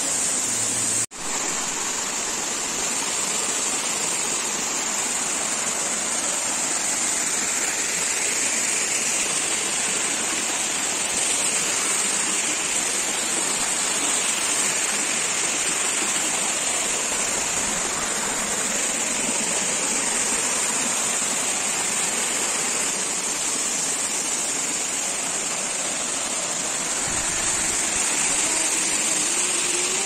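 Waterfall water rushing and splashing steadily, with a constant high-pitched hiss over it. The sound cuts out briefly about a second in.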